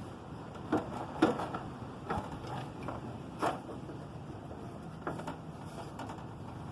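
Scattered metal clicks and clinks of small bolts and hand tools being handled while working on a motorcycle, the sharpest a little over a second in.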